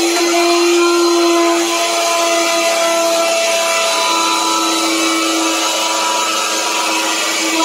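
Handheld electric wood router running at speed, its motor giving a loud, steady whine as the bit cuts grooves into a wooden panel.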